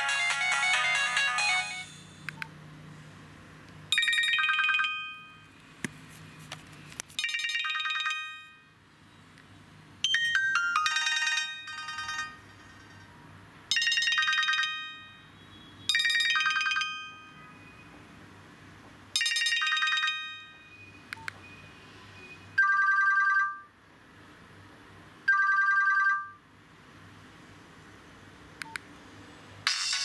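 Nokia 1800 mobile phone's speaker playing ringtone previews: a short high chiming phrase repeats about every three seconds, then a two-note beep sounds twice, and a new, busier tune starts at the very end. A few faint clicks fall between the tones.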